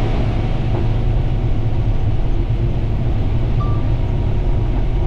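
Combine harvester running steadily while harvesting corn, a loud, even, low engine rumble.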